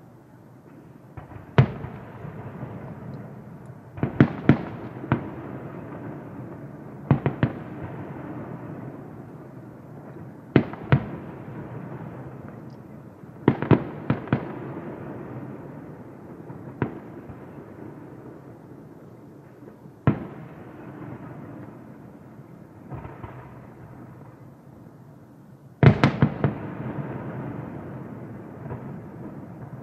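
Aerial firework shells bursting with sharp booms every few seconds, singly or in quick groups of two or three, each followed by a fading, echoing rumble and crackle. The loudest cluster of bangs comes near the end.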